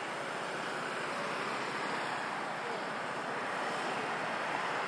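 A car driving past over a steady wash of street traffic noise.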